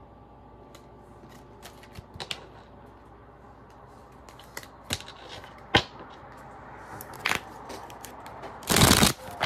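Tarot cards being handled on a desk: scattered light taps and flicks as cards are pulled from the deck and laid down, then a short, louder rustle of the deck near the end.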